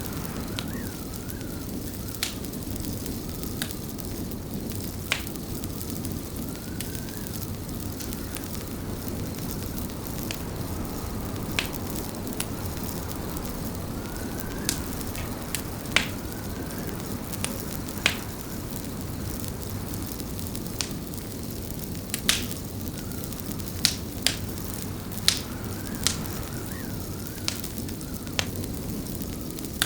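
Wood fire crackling in a fireplace: sharp pops and snaps at irregular intervals over a steady low rush, with a faint wavering whistle of winter wind against the windows.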